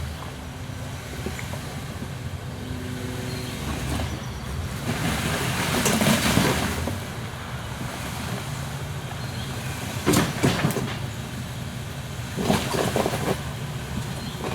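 Jeep Wrangler engine running on a rocky off-road trail, a steady low rumble that swells louder around the middle, with a couple of shorter louder moments near the end.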